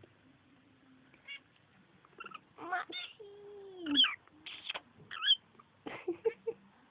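Rosy-faced lovebirds chattering and squeaking: a string of short, pitch-gliding calls, with the loudest about four and five seconds in.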